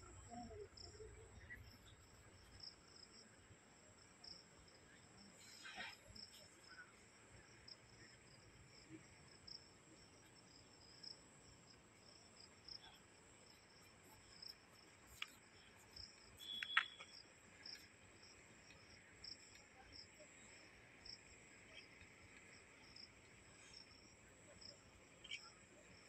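Faint, steady high-pitched chirring of insects in the surrounding forest, one trill even and one pulsing, with a few short sharp ticks, the sharpest about seventeen seconds in.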